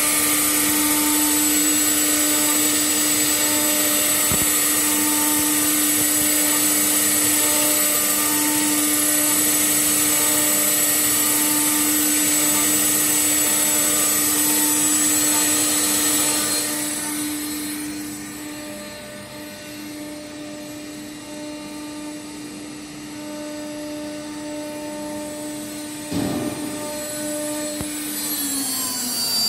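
CNC router spindle running with a steady whine while the cutter engraves, with loud cutting noise. About 17 seconds in the cutting noise drops away and the spindle runs on more quietly. There is a knock about 26 seconds in, then the whine falls in pitch as the spindle winds down, as for a tool change.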